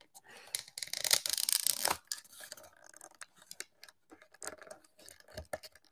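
Cardboard toy box being handled: a rough scraping and rubbing for about two seconds, then scattered light clicks and rustles.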